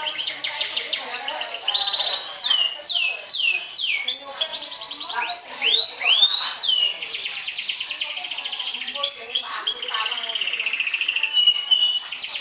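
Domestic canary singing. It runs fast trills of rapidly repeated notes, breaks into steep downward-sweeping whistles twice, and holds a steady note near the end.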